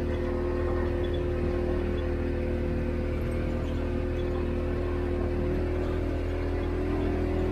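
A vehicle's engine running at a steady low drone while the vehicle rolls slowly.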